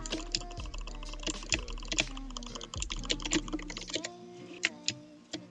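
Computer keyboard typing: rapid, irregular key clicks, with music playing underneath.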